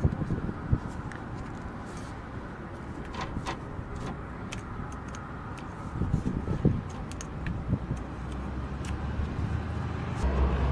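Scattered small clicks and knocks of hand work on a van's fuel lines and filter, over a steady low rumble. A low hum comes in near the end.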